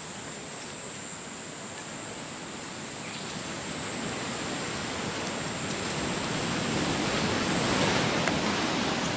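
Steady rushing noise that swells louder through the second half and eases off near the end.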